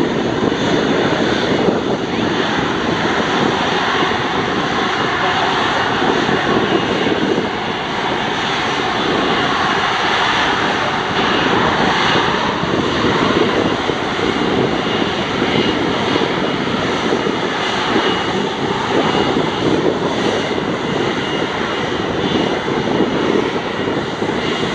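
Airbus A330-300 freighter's twin jet engines running at taxi power as it rolls onto the runway: a steady rushing roar with thin, high steady whine tones over it.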